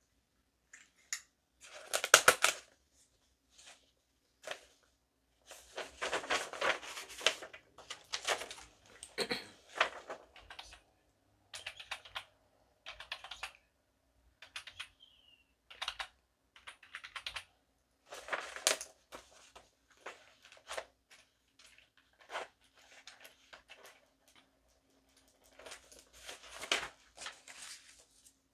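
Computer keyboard being typed on in short, irregular bursts of key clicks with brief pauses between them.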